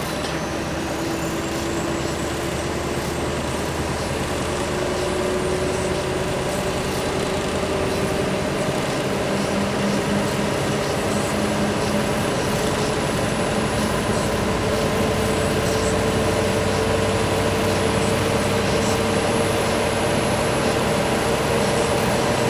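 Scania R500 semi truck's V8 diesel engine running under load, heard from inside the cab with tyre and road noise, its pitch rising slowly and steadily as the laden truck gathers speed.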